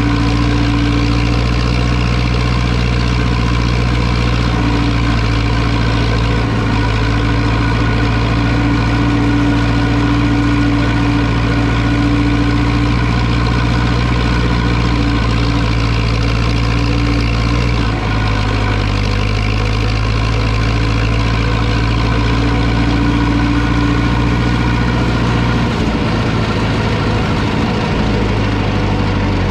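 Zetor 6245 tractor's four-cylinder diesel engine running steadily, with small changes in engine speed about 18 seconds in and again near the end.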